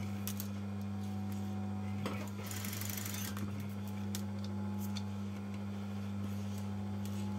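Electric sewing machine running as lace is stitched onto a fabric sleeve, with a steady motor hum and a few short clicks.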